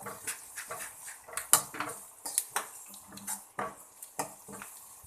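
A spoon stirring and scraping in a pan, with irregular sharp clinks of metal on metal about two or three times a second, as powdered spices are mixed into onions frying in oil.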